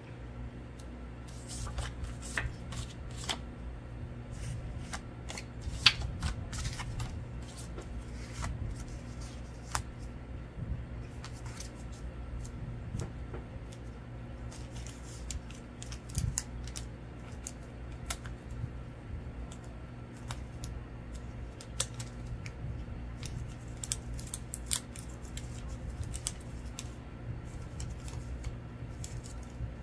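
Scissors cutting paper: irregular crisp snips and paper rustles scattered throughout, over a low steady hum.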